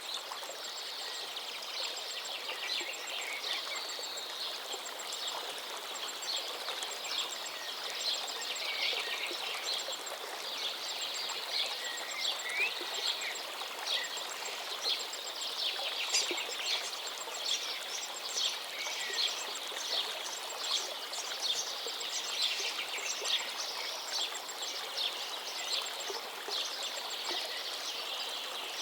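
River water flowing steadily, with small birds chirping throughout in many quick short notes and a thin, high note repeated in short runs.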